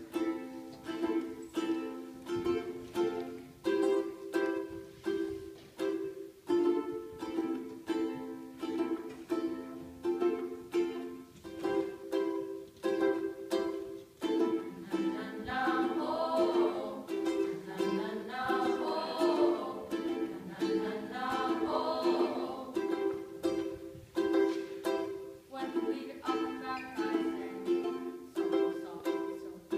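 Ukulele strummed in a steady, repeating rhythm, with voices singing over it from about 15 to 23 seconds in.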